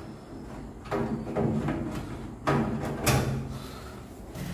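Knocks and bumps from handling the metal cabinet of a microwave oven as it is worked on, with a few sharper knocks about one, two and a half and three seconds in.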